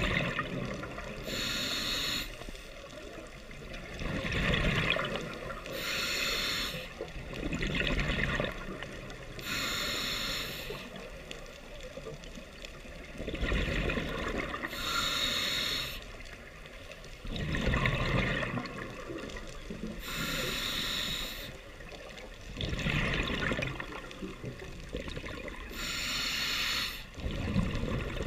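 Scuba diver breathing through a regulator underwater: a hiss on each inhale, then a gurgling rumble of exhaled bubbles, about five slow, even breaths, roughly one every five to six seconds.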